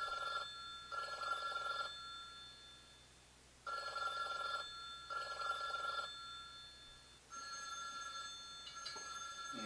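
A rotary-dial telephone's bell ringing in pairs of short rings, the pairs repeating about every three and a half seconds.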